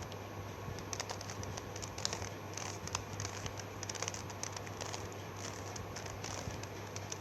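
Rubik's cube being turned by hand through a solving sequence: faint scattered clicks of the layers twisting, over a steady low hum.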